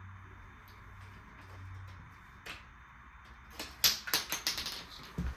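Marbles clicking and clattering through a plastic marble run track: a single click, then a quick run of sharp clicks in the second half. A low steady hum sounds under the first couple of seconds.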